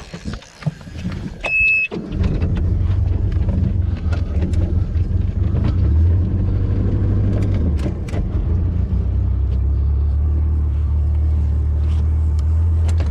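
Wooldridge jet boat's inboard engine starting about two seconds in, right after a short electronic beep, then running steadily at a low, even pitch. A few light clicks and knocks come through over it.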